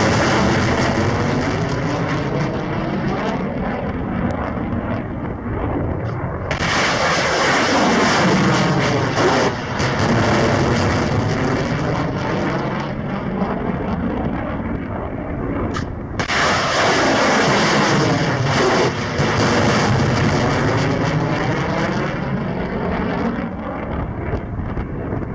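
Missile launches: rocket motors roaring as the missiles climb away, a continuous rushing roar whose tone sweeps as it goes. Fresh launches break in about six seconds in and again about sixteen seconds in.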